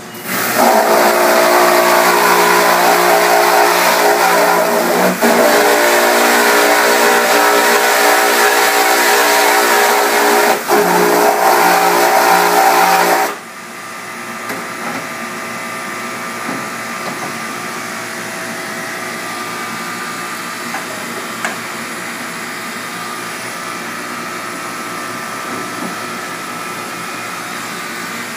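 A 3-gallon-per-minute, 900 psi pressure washer runs loud and steady, a motor hum under the hiss of the spray, as it washes the unexposed photopolymer emulsion out of screen-printing screens. It cuts off suddenly about 13 seconds in, leaving a quieter steady hiss.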